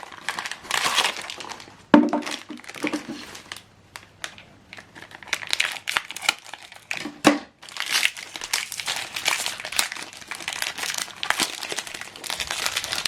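Ink cartridge packaging crinkling and rustling as it is opened and handled by hand, with two sharper knocks about two and seven seconds in.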